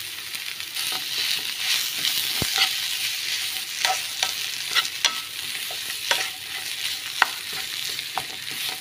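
Mashed potato being stirred into a sizzling onion tempering in an oil pan: a steady sizzle, with the spoon scraping and tapping sharply against the pan again and again.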